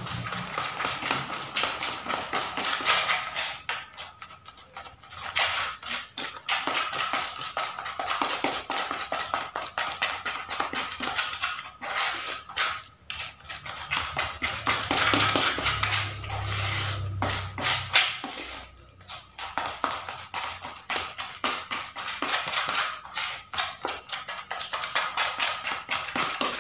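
Hand mixing and kneading crumbly corn-and-cassava carp-bait dough in a plastic bowl: a fast, steady patter of soft squishes, crackles and taps, breaking off briefly a few times. The dough is being worked until it is evenly mixed.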